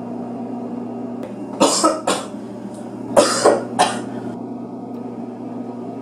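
A person coughing in short fits: a pair of harsh coughs about a second and a half in, then a quick run of three more about a second later.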